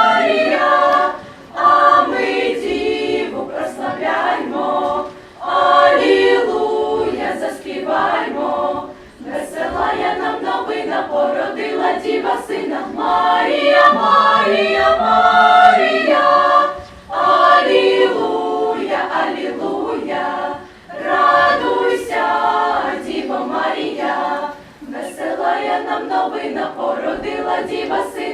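A choir singing a Christmas carol in long phrases, with brief pauses between them about every four seconds.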